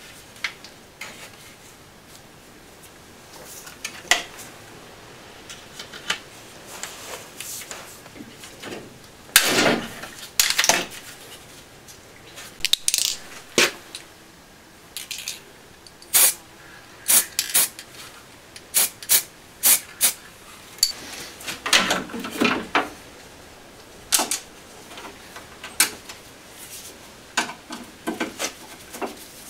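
Irregular clicks, taps and scrapes of plastic and metal parts being handled and fitted around a car headlight, with a few longer rustling, hissing bursts of about a second.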